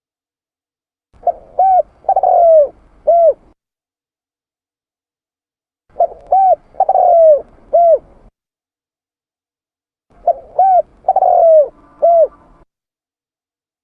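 Spotted dove (tekukur) cooing: three repeated phrases about four and a half seconds apart. Each phrase is two quick coos, a longer falling coo and a short closing coo.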